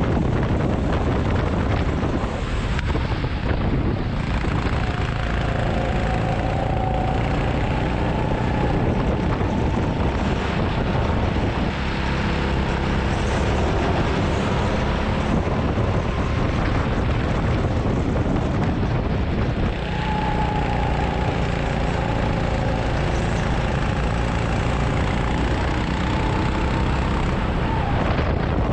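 Go-kart engines running at racing speed, their pitch rising and falling through the corners, under heavy wind noise on the microphone.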